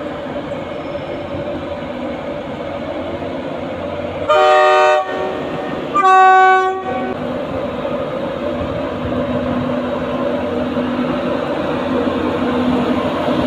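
British Rail Class 91 electric locomotive sounding its two-tone horn, two short blasts of different pitch about a second apart, as it starts to pull away. A steady running hum swells slowly as it moves off.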